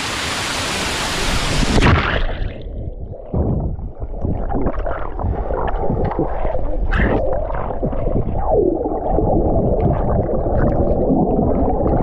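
Rushing waterfall water that cuts off abruptly about two seconds in as the action camera goes underwater. After that the sound is muffled underwater gurgling and bubbling, with frequent dull knocks.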